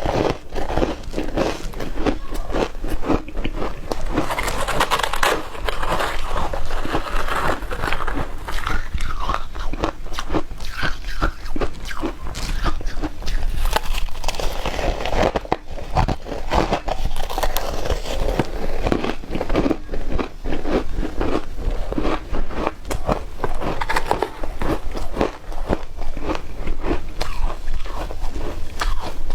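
A person biting and chewing shaved ice: a continuous run of rapid, crisp crunches.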